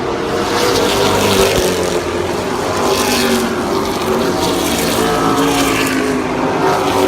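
Race car engines running loud at speed, several at once, their pitch wavering as the cars go round the track.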